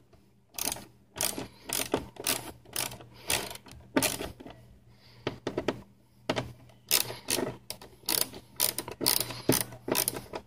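Hand ratchet wrench clicking in short runs, roughly two a second, as it backs out the bolts of a front license plate bracket, with a pause about halfway through.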